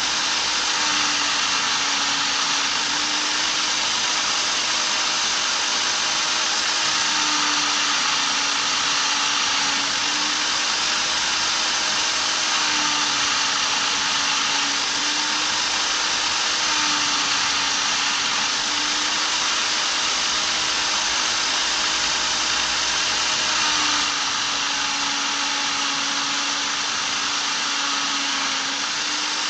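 Bench-clamped Black & Decker corded electric drill running steadily with an epoxy-resin piece pressed against its spinning pad, a constant motor whine under a rubbing hiss, the motor note dipping slightly now and then. This is the polishing stage of the resin.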